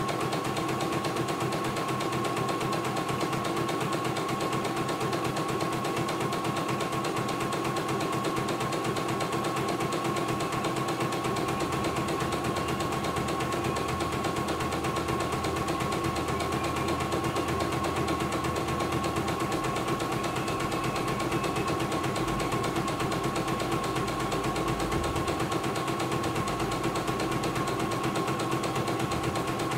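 CNY E900 embroidery machine stitching a design: rapid, even needle strokes over a steady motor whine. A low rumble comes and goes over the second half as the hoop carriage moves.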